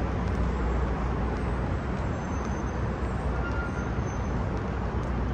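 Steady city traffic noise: a constant low rumble with no single event standing out.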